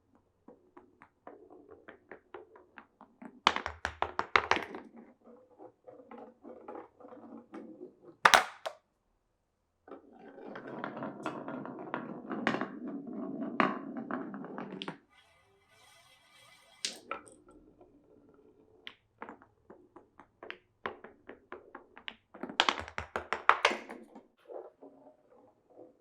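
Glass marbles running down a wooden marble run: clicking and clattering as they drop onto and knock against the wooden blocks and rails, with one sharp loud knock about eight seconds in. A steady rolling rumble lasts about five seconds from ten seconds in, as a marble rolls along a track or through a pipe.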